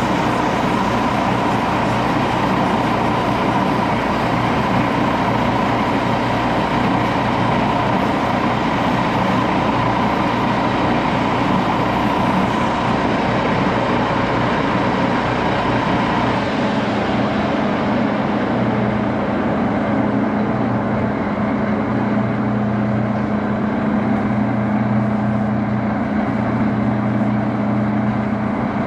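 1941 Axelson engine lathe running steadily while a handle is free-hand machined and polished. About halfway through the sound changes: the high hiss and a mid-pitched tone drop away, leaving a steady low hum.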